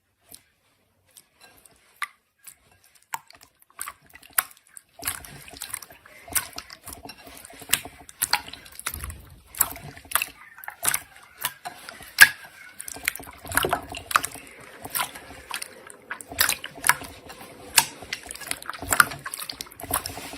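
Slime being squished and poked by hand, giving wet sticky clicks and pops. The clicks are scattered at first, then come thick and fast from about five seconds in.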